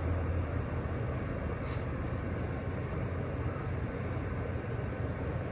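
Steady low rumble of background noise, with a brief high hiss about two seconds in.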